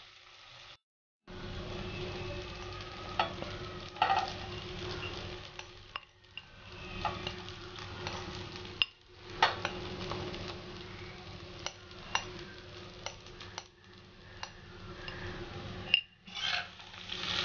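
Soaked tapioca pearls (sabudana) tossed with crushed peanuts landing in hot oil in a kadhai: steady sizzling that starts about a second in. Sharp clicks of a spoon against the glass bowl and the pan are scattered through it.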